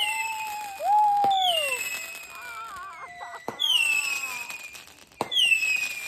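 Consumer fireworks going off: whistling shots whose shrill whistles fall in pitch, each starting with a sharp bang, three bangs in all.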